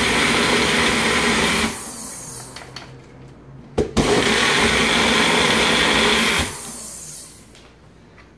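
Single-serve press-down blender running with a liquid mixture in its cup, in two pulses. It spins down about two seconds in, clicks back on at about four seconds, runs for about two and a half seconds more, then winds down.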